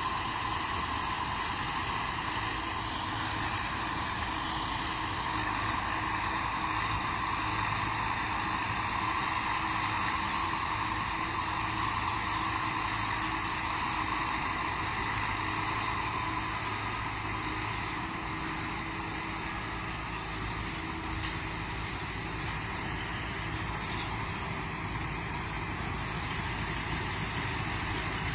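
Rice combine harvester's diesel engine and machinery running steadily, with a thin high whine over the engine drone.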